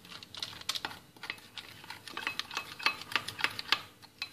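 Metal spoon clicking against a small glass bowl while stirring icing sugar and orange juice into a glaze, in irregular clicks a few times a second.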